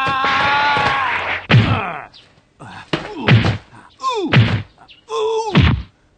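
A long held yell, then a series of cartoon fight sound effects: punches and kicks landing with heavy thuds, about four hits a second or so apart, each with a sound that falls in pitch.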